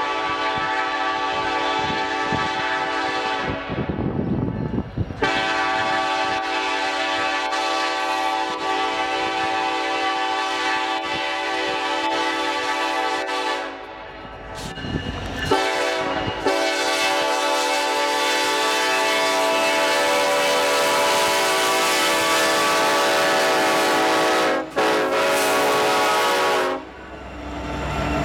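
Ferromex diesel freight locomotive sounding its air horn, a chord of several notes, in long blasts with short breaks about four and fourteen seconds in and a brief cut near the end. The horn stops near the end as the locomotive draws alongside, leaving its rumble.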